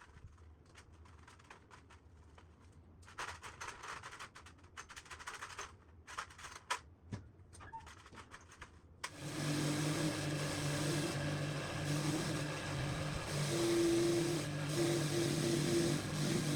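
Light clicks and scraping of metal parts being handled, then about nine seconds in a small electric power tool starts and runs steadily with a hum.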